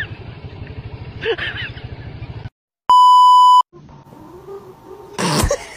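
A scooter engine running with a short voice call about a second in. It cuts to a moment of silence, and then a loud electronic beep sounds about three seconds in: one steady tone lasting under a second. A short loud burst follows near the end.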